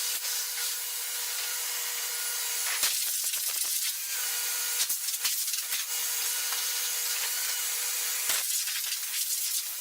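Shop vacuum running steadily while it cleans sawdust and sap out of a band saw's belt compartment, with the nozzle knocking against the saw a few times.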